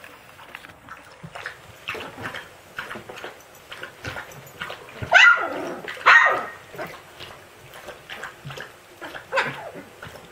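Siberian husky puppies yipping and yelping at each other as they play-fight: many short, high cries, with two louder, longer ones about five and six seconds in.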